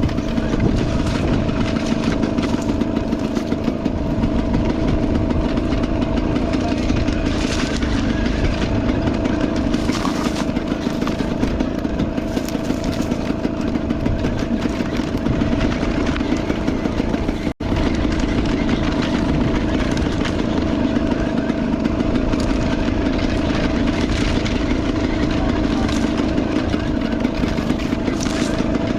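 Enduro motorcycle engine running at a steady speed, with a momentary break in the sound about two-thirds of the way through.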